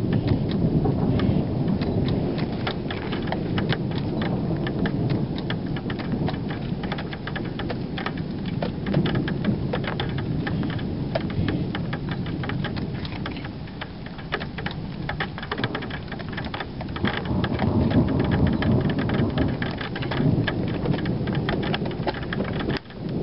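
Thunderstorm: a continuous low rumble that swells and eases, loudest near the start and again in the later part, with many small raindrop ticks over it.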